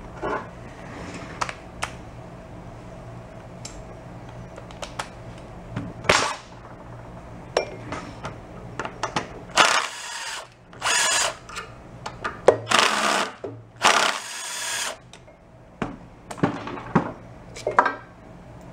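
A cordless driver spinning out the ignition coil's mounting bolts on a small engine, in four short runs in the middle, with clicks and knocks of tools and parts around them.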